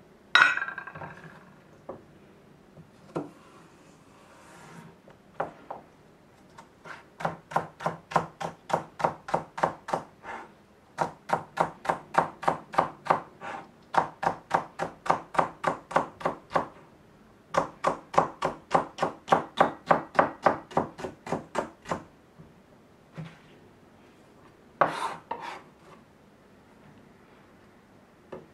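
Kitchen knife slicing a celery stalk on a plastic cutting board: quick, even chops at about three a second in three runs with short breaks between them. A sharp knock at the very start is the loudest sound, and a couple of lighter knocks come near the end.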